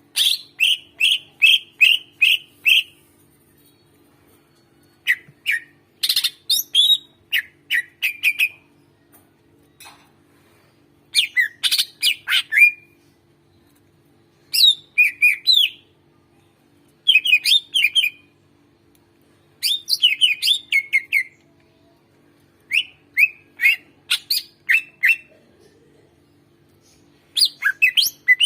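Green leafbird (cucak ijo) singing an agitated, full song: about nine bursts of rapid, sharp chirping notes, each one to three seconds long, separated by short pauses. A faint steady low hum sits underneath.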